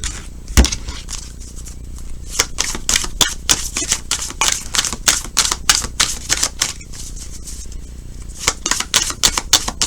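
Tarot cards being shuffled by hand, a run of quick clicks and flicks. Two sharper taps come near the start, and the clicks grow dense from a couple of seconds in onward.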